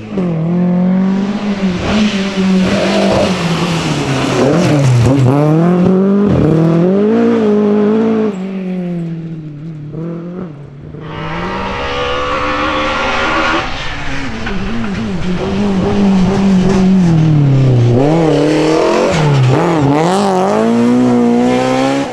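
Two BMW E30 rally cars driven hard one after the other, each engine revving up and dropping back again and again through quick gear changes. The engine note dips about ten seconds in as the first car leaves and the second one comes on.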